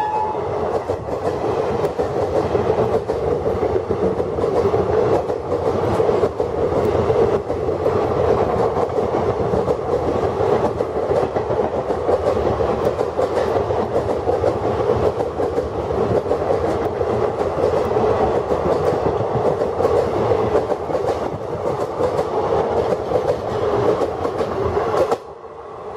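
Indian Railways express passenger coaches passing at speed close by: a steady rushing rumble with the clickety-clack of wheels over rail joints. It cuts off suddenly near the end.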